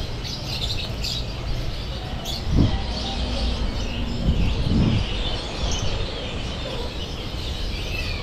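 Many caged songbirds chirping and twittering at once, a dense chorus of high chirps and trills over a low hum of market background. A brief low bump about two and a half seconds in is the loudest moment.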